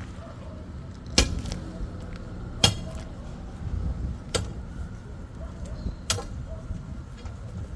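Four sharp strikes of a hand digging tool against the ground, evenly spaced about every one and a half to two seconds, over a steady low rumble.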